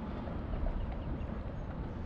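Steady wind buffeting the microphone, with light water lapping and trickling against the side of the kayak.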